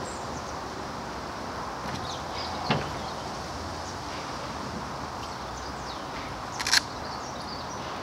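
A folding solar panel being handled and set down on a boat roof, over a steady background hiss. There is a single knock about three seconds in and a louder quick clatter of a few clacks near the end.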